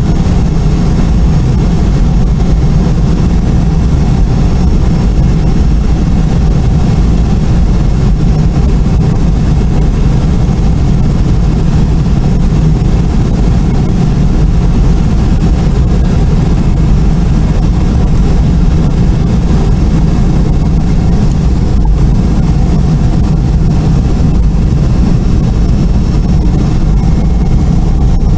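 Cabin noise of a Boeing 717 taxiing, its Rolls-Royce BR715 turbofans running at low thrust: a steady loud rumble with a thin, high, even whine above it.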